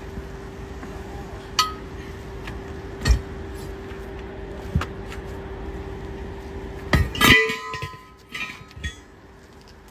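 Metal tools knocking and clinking with scattered sharp strikes, under a steady hum that cuts off about seven seconds in, followed by a short cluster of clatter.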